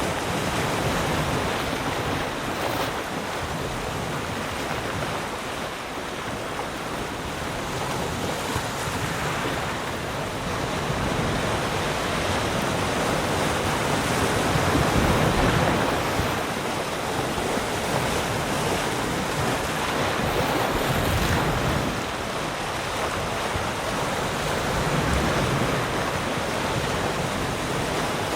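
Ocean waves breaking and washing on a shore, a continuous surf rush that swells and ebbs slowly, loudest about halfway through.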